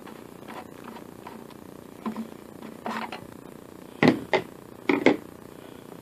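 Hand tools and the plastic air-filter cover on a Briggs & Stratton mower engine being unscrewed and lifted off. There are a few light clicks, then four sharp clatters in two quick pairs about four and five seconds in. A steady low drone sits under it all.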